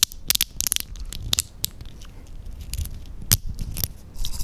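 Dry, uncooked spaghetti strands snapping: a quick run of sharp cracks in the first second, then a few single snaps, the sharpest a little after three seconds.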